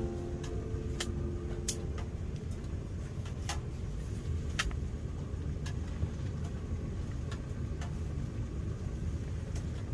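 Wood pellets burning in a stove: a steady low rumble with sharp, irregular crackles about once a second.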